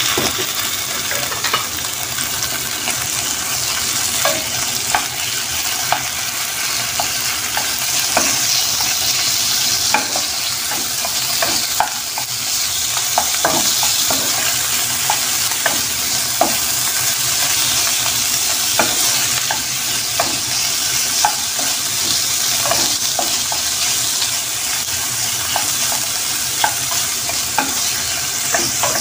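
Chicken pieces sizzling as they fry in oil with sliced onion and garlic in a pan, a steady hiss with a spatula scraping and clicking against the pan now and then.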